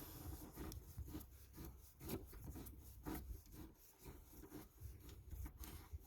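Faint, irregular small clicks and rubbing as a Torx screw is turned back into a captured nut in a pickup door, holding on a replacement door handle.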